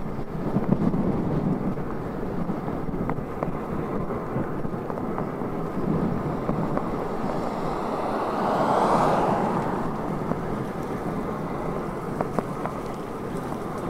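Wind rushing over the microphone while riding an Inmotion V11 electric unicycle, with a louder rush that swells and fades about nine seconds in.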